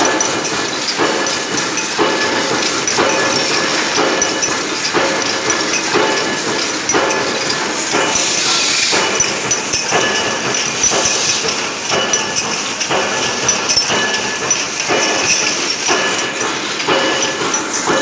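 Automatic trimming machine for aluminium aerosol cans running, a steady mechanical clatter with a metallic knock about once a second as it cycles. A short hiss comes in about halfway through.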